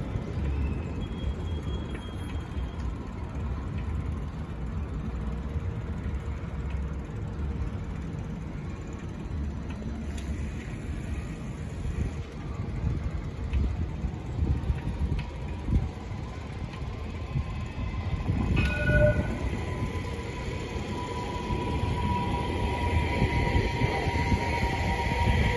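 Blue street tram running past on the track beside the road, over a steady low rumble. A brief tone sounds about two-thirds of the way through, and a whine grows louder over the last few seconds.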